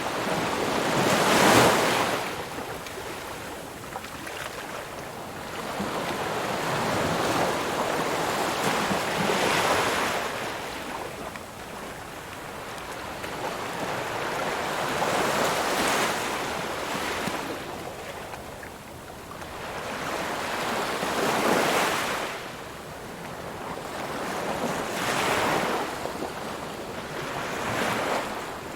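Ocean waves breaking and washing up the shore, the surf swelling and fading in slow surges every few seconds.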